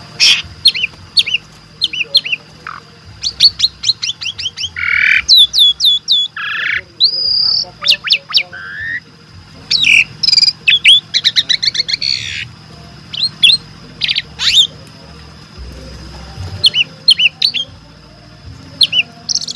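Asian pied starling (jalak suren) singing a varied song: quick runs of short, falling whistles mixed with harsh, noisy notes. There is a pause of a second or so near the end, then a few more whistles.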